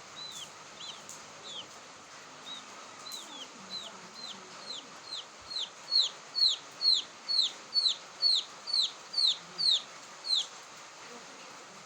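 Quail chick calling: a series of short, high whistles that slide downward, soft and spaced out at first, then louder and about two a second from about halfway in, stopping shortly before the end.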